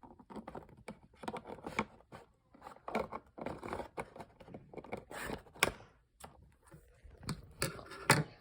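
Toy packaging being pulled and worked at by hand in an attempt to open it: irregular crinkling, scraping and sharp clicks of plastic and cardboard.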